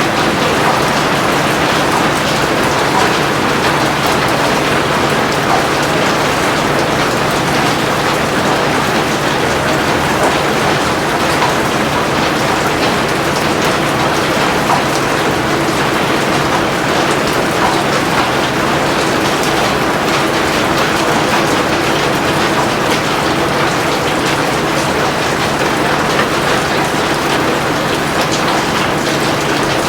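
Steady heavy rain, a dense even patter of drops falling on surfaces.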